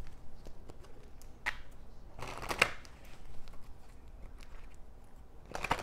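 Tarot deck being shuffled and handled: several short papery rustles and flicks at irregular intervals, the longest about two seconds in and another near the end.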